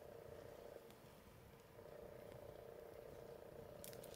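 Faint frog chorus, a steady trill that breaks off for about a second near the start and then resumes. A few light crackles from the wood fire near the end.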